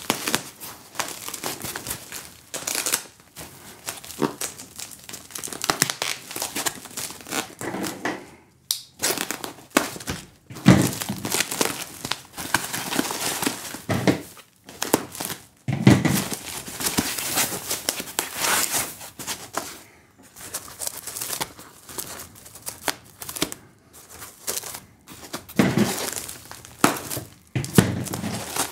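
Clear plastic wrapping crinkling and tearing as it is pulled and peeled off a parcel wrapped in pink anti-static foam: irregular crackling with a few short pauses and several louder, fuller handling bursts.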